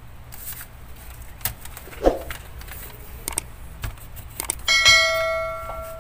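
A few sharp clicks, then about three-quarters of the way in a bright bell ding that rings and fades away over about a second: the notification-bell sound effect of a subscribe-button animation.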